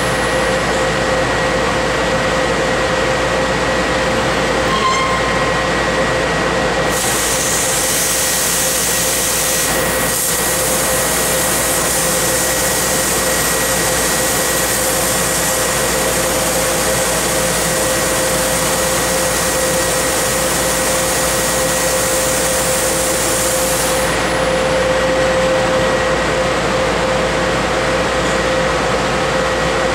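Tanaka LMXVIIZ 6 kW laser cutting machine cutting 3/8-inch mild steel: a steady rushing hiss of the cut with a constant hum under it. A brighter, higher hiss comes in about a quarter of the way through and drops away again near the end.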